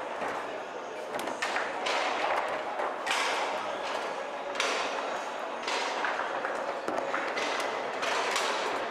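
Foosball rally on a Leonhart table: irregular sharp knocks, roughly one a second, of the hard ball striking the plastic men and the table walls and rods hitting their stops, over steady background noise.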